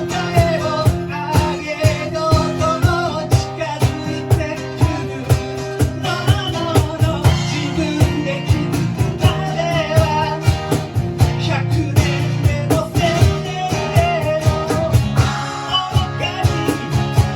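Live rock band playing a song: guitars over a steady drum beat, with a wavering melodic lead line.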